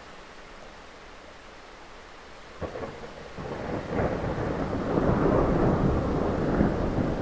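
A low, rough, crackling rumble. A faint steady background gives way to a thump about two and a half seconds in, and the rumble then swells up over the next couple of seconds and stays loud.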